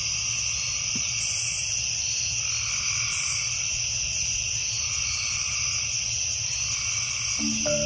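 Nature ambience track: a steady, high-pitched chorus of insects with no break, and a soft call about every two seconds over a low hum.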